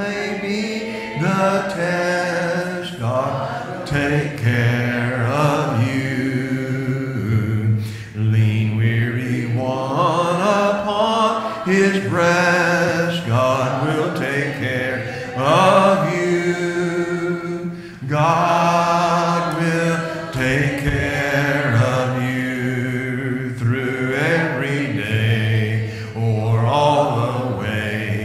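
Congregation singing a hymn in slow, held phrases, with short breaks between lines.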